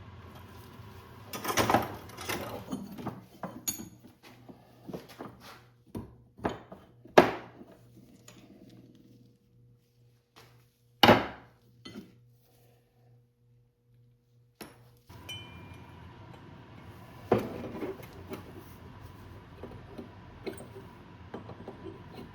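Metal tools and parts clinking and knocking as they are handled and set down during a dirt bike shock linkage rebuild, in irregular single knocks with a brief silent gap a little past halfway.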